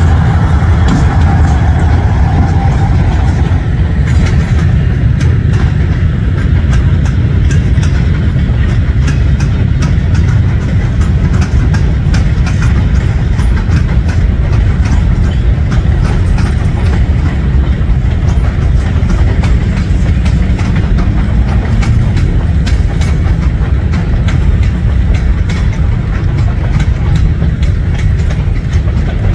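Freight train of covered hopper cars rolling past: a steady heavy rumble of the wheels on the rails with rapid clicking of wheels over the rail joints.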